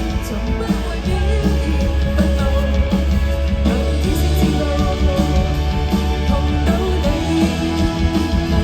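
Live band playing a song, with guitar and a steady bass line that comes in strongly about a second in.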